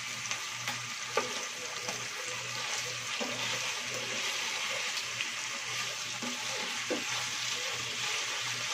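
Chicken pieces sizzling steadily in oil in a nonstick frying pan over medium heat as they brown. A spatula taps and scrapes against the pan now and then while the pieces are turned.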